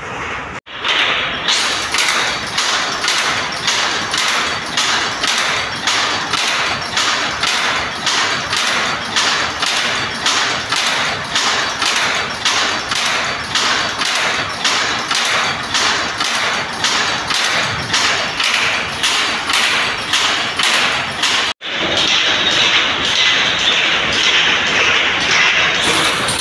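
Sri Vinayaga 4/1 power loom running, beating in a steady, even clacking rhythm of about two strokes a second. The sound drops out abruptly about 21 seconds in and comes back as a denser, more even mechanical clatter.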